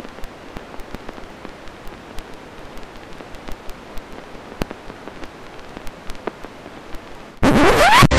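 A steady hiss dotted with sharp, irregular crackles and pops. About seven seconds in, loud music cuts in suddenly with a rising sweep.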